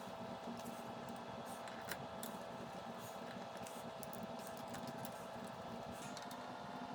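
Faint, irregular small clicks and taps of a screwdriver driving screws back into a KitchenAid stand mixer's housing, over a steady low hum.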